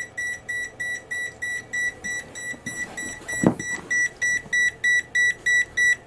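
Computer fan-failure alarm beeping rapidly, about three and a half short high beeps a second, growing louder toward the end: it sounds because a case fan has lost its connection. A soft knock comes about midway.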